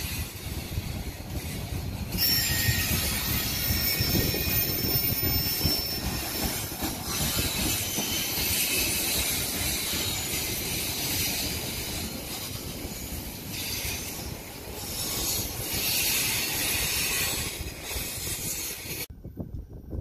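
Container wagons of a freight train rolling past at speed, steel wheels running on the rails with a steady rumble, a high hiss and a thin high squeal at times. The sound cuts off suddenly near the end.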